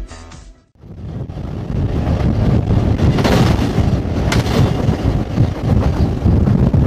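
Loud wind buffeting on the microphone over the low rumble of a moving freight train, building up about a second in. Two short, sharp knocks cut through about three and four and a half seconds in.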